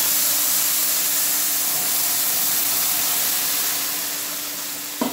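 Boiling water poured into a hot pan of oil-fried rice, hissing and sizzling steadily as it hits the hot pan and easing off near the end.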